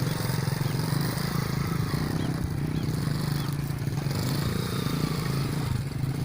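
A small engine running steadily at an even pitch, a constant low drone.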